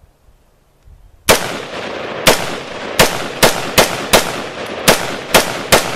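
A run of about ten loud, sharp bangs at uneven intervals, starting a little over a second in, over a continuing noisy rumble between them.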